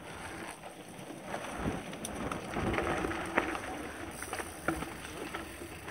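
Mountain bike rolling over a rough dirt trail: a steady noise of tyres on dirt and gravel, with scattered knocks and rattles from the bike jolting over bumps.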